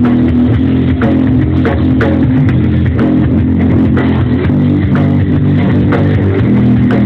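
Live rock band playing, with electric guitar, bass guitar and drum kit, the drums hitting about twice a second under sustained guitar and bass; no singing is heard in this stretch.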